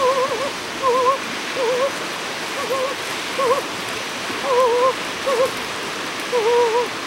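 A steady rush of flowing water. Over it, short warbling whistle-like notes wobble up and down in pitch about eight times, irregularly spaced.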